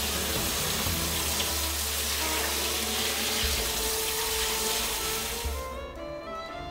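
Tap water running onto raw chicken pieces in a metal mesh strainer over a stainless steel sink, splashing as hands turn and rinse the meat. The running water cuts off suddenly near the end.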